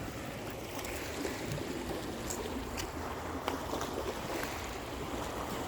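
Lake water washing against the shore, a steady wash with a few faint clicks.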